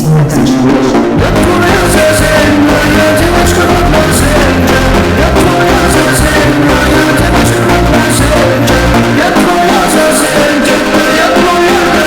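Rock music with singing, drums and guitar, playing loudly and steadily.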